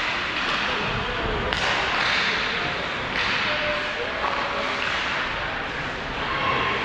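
Hockey game play: sharp knocks of stick and puck, one about a second and a half in and another a little after three seconds, over steady rink noise with faint distant voices.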